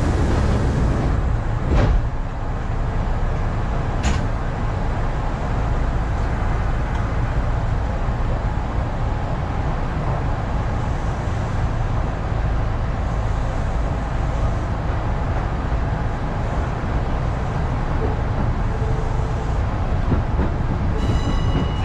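Kintetsu electric train heard from inside the driver's cab: a steady low rumble as it moves off from a station and runs along the line, with two sharp clicks about two and four seconds in.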